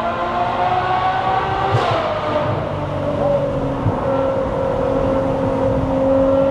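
Ferrari 812 Superfast's naturally aspirated 6.5-litre V12 running under way, its note climbing slightly, then about two seconds in a short sharp crack from the exhaust as the revs fall, after which it holds a steady lower tone.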